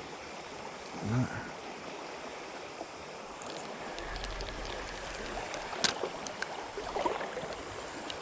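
River water flowing steadily, with a few scattered sharp clicks and taps in the second half.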